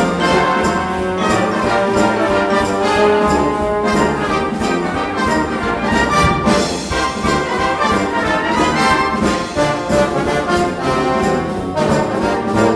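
Brass band music playing, many brass instruments together in a steady rhythm.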